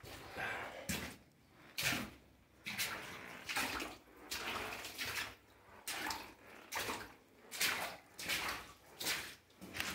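Footsteps walking steadily along a rough, rocky mine-tunnel floor, about one step every 0.8 seconds.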